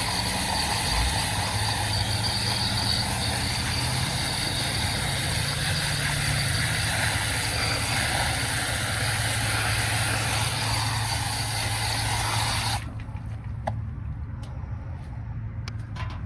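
A steady machine noise: a motor's low hum under a loud hiss, which cuts off abruptly about 13 seconds in. A few faint clicks follow.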